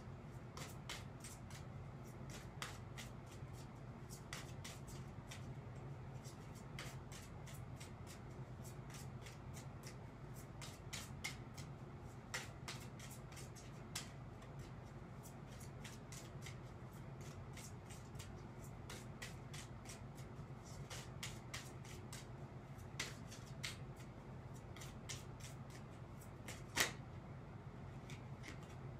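An oracle card deck being shuffled overhand by hand: a long run of soft, quick card clicks and riffles, with one sharper tap near the end, over a low steady room hum.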